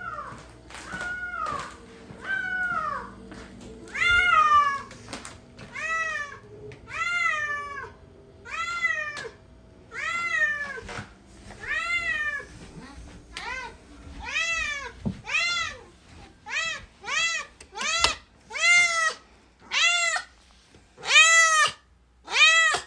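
A domestic cat meowing over and over, each meow rising then falling in pitch. The meows come about every second and a half at first, then grow shorter, quicker and louder near the end.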